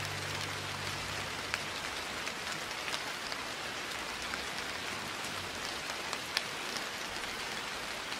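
Steady rain heard from inside a car, an even hiss with scattered sharp ticks of drops striking close by.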